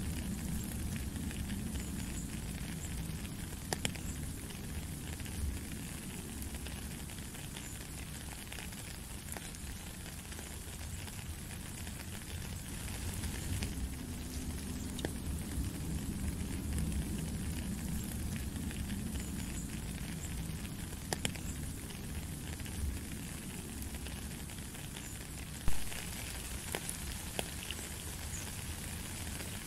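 Steady rain falling on puddles and wet gravel, a continuous hiss with scattered individual drops ticking. There is one sharp, louder tap near the end.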